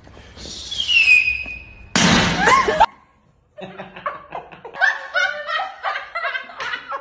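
A whistle falling in pitch, then a short loud firework-like bang and hiss, followed after a brief pause by two women laughing hard.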